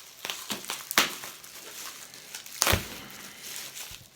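Packaging being handled and torn open: crinkling and rustling throughout, with two louder sharp knocks, one about a second in and one past the middle.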